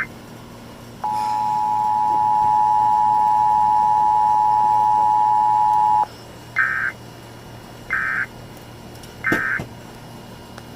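Emergency Alert System test tones: the two-tone attention signal held steady for about five seconds, then three short, buzzy digital data bursts about a second and a half apart, the end-of-message code that closes the alert.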